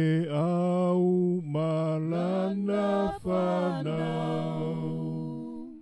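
A man's voice, unaccompanied, singing or chanting in slow, long held notes, a few sustained tones with brief breaks between them.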